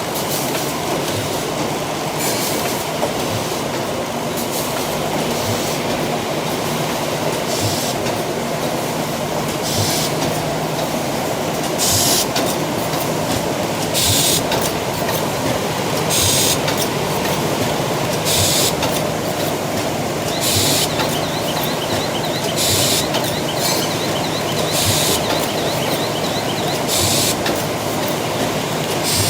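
Automatic bag cutting and sewing machine running: a steady machine drone with regular light knocks, and a short hiss about every two seconds as it cycles.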